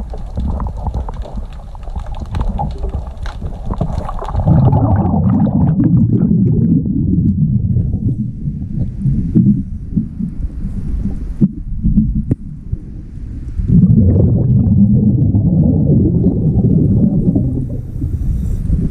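A scuba diver's breathing regulator heard underwater: two long exhalations of bubbles rumbling past the microphone, one starting about four and a half seconds in and another about fourteen seconds in, with quieter breathing noise between.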